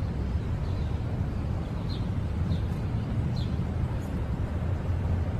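Steady low outdoor rumble, with a few faint short high chirps near the middle.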